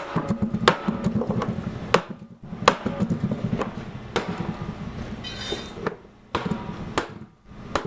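Hammer blows on a steel hoop of an oak wine barrel, driving the hoop back to loosen it so the head can be removed: a series of sharp knocks roughly a second apart, with a brief high ringing about five seconds in.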